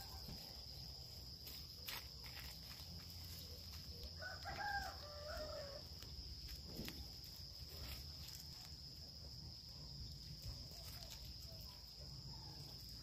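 A rooster crowing once, a call of about two seconds starting about four seconds in, over a steady high-pitched tone.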